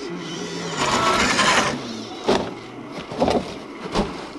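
Brushless sensored electric motor of an RC4WD Gelande Defender 90 scale crawler whining at low speed, its pitch stepping down as the truck climbs. A few sharp knocks come about halfway in and near the end.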